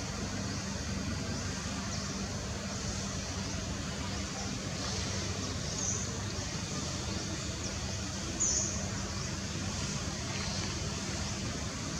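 Steady outdoor background noise with a faint low hum, and two short high-pitched chirps, one about halfway through and a louder one a couple of seconds later.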